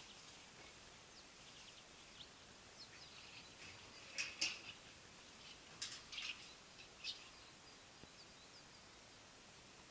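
Quiet background hiss with faint bird chirps and a few short, sharp high-pitched clicks or rustles about four, six and seven seconds in.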